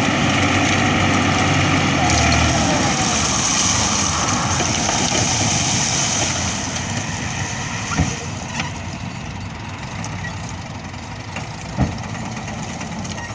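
Farm tractor engine running while its hydraulic tipping trolley is raised and dumps its load, with a hiss for a few seconds early on. The engine gets quieter about halfway through, and two sharp knocks come in the second half.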